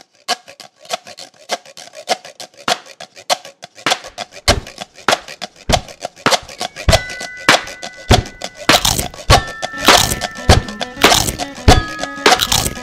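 Film score music: a fast ticking percussion rhythm that builds, with heavy drum hits coming in about four seconds in and sustained notes layered over it in the second half.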